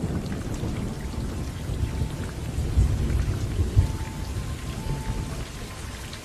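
Thunder rumbling over steady rain, the rumble heaviest about three to four seconds in.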